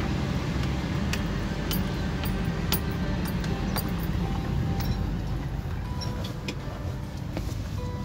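Steady low road and engine rumble inside a moving car's cabin, with frequent small sharp clinks and rattles. Background music with held notes comes in from about six seconds in.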